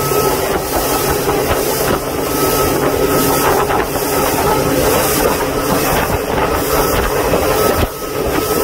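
Boat motor running steadily with a constant hiss of wind and water over it.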